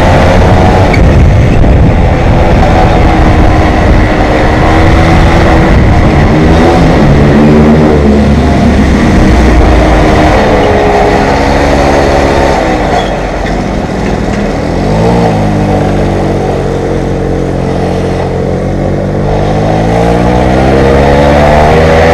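Stock Peugeot 103 SP moped's 50 cc two-stroke single-cylinder engine running under way, its pitch rising and falling with the throttle. Past halfway it drops in pitch and gets a little quieter, then climbs again near the end.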